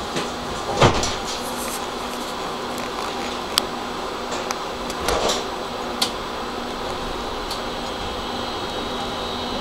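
Interior of an old high-floor tram on the move: a steady running hum with scattered clunks and rattles of the car body, the loudest a single knock about a second in. A faint high whine comes in over the last few seconds.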